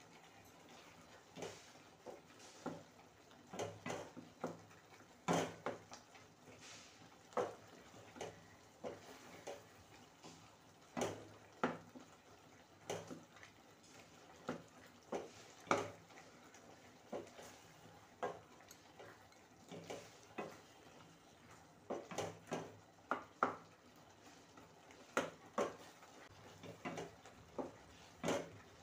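Wooden spatula stirring thick tomato chutney in a stainless steel kadai, knocking and scraping against the pan in an irregular series of strokes, one or two a second.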